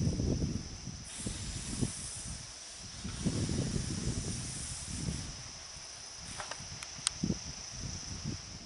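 Irregular low rumbling that swells and fades, under a steady high-pitched hiss of insects; a few light clicks near the end.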